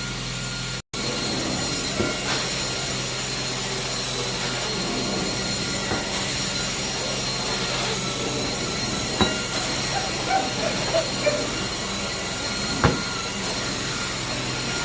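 Carpet-cleaning extraction machine running steadily: a continuous rushing noise with a few fixed machine tones and occasional small clicks. It cuts out for an instant about a second in.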